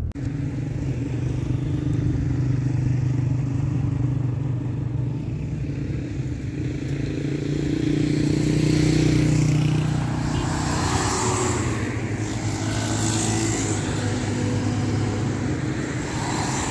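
Car engine and road noise heard from inside a moving car, the engine swelling about halfway through, followed by bursts of louder hiss.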